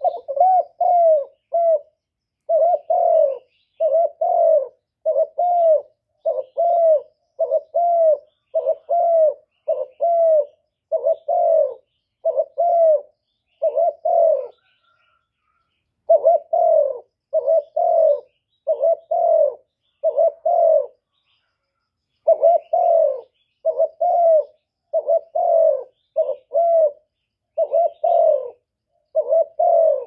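Spotted dove cooing: a long run of short coos, about two a second, with brief breaks about halfway and about two-thirds of the way through.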